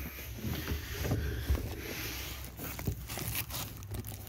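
Rustling and handling noise as fabric seat covers are pushed aside by hand: a low rumble with irregular soft knocks and scrapes.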